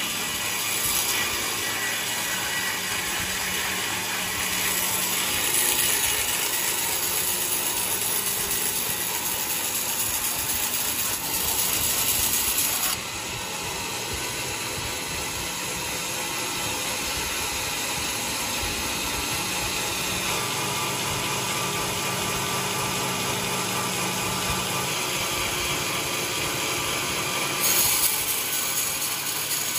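Sawmill machinery running and a saw cutting through coconut-palm wood, a steady dense mechanical noise. Partway through, the sound drops a little and changes, and there is a brief louder burst near the end.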